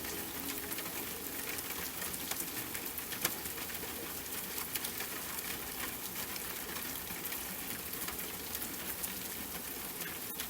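Steady rain falling, a constant hiss dotted with individual drops ticking and spattering.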